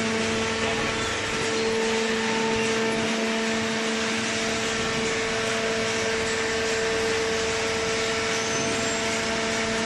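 Hydraulic baler's pump unit running steadily, a constant hum with a whine over a hiss of machine noise.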